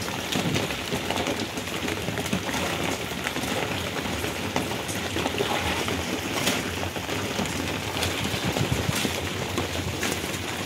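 Steady rain falling: an even hiss with scattered ticks of drops.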